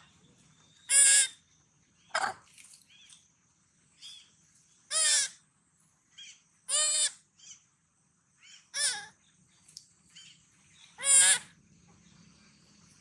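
Baby monkey crying: about six high, wavering cries, each about half a second long, a couple of seconds apart, the distress calls of a young monkey looking for its mother.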